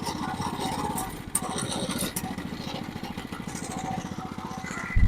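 Mini bike's small engine running with a rapid, steady firing pulse; the engine keeps wanting to cut off while its throttle and choke are being adjusted. A short low thump comes right at the end.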